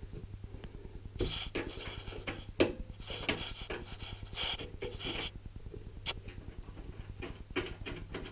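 Thumb screws being turned out of the back of a Lenovo ThinkCentre desktop case: scratchy rubbing and small metal clicks, busiest in the first half, over a steady low hum.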